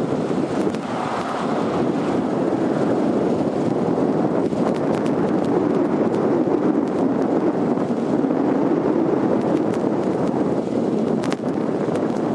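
Strong gusty wind buffeting the microphone in a steady, loud rush.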